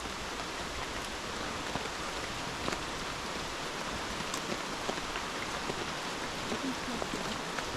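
Steady rain falling in a tropical rainforest, an even hiss with a few sharper drops ticking now and then.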